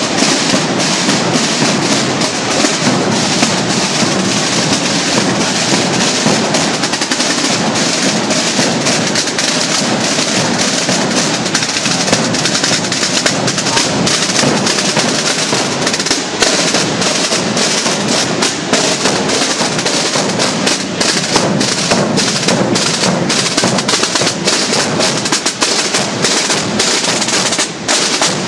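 A Holy Week drum corps of rope-tensioned marching drums played with sticks, many drummers beating together without a break.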